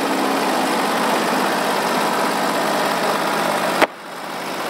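Norwood portable sawmill's engine running steadily. Near the end a sharp click, after which the sound briefly drops and swells back up.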